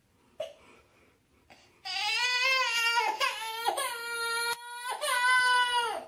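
Toddler crying: a couple of short whimpers, then from about two seconds in a run of about four long, loud, held wails.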